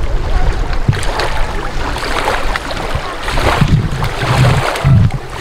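Wind buffeting the microphone in uneven gusts, over small waves lapping at a lake shore.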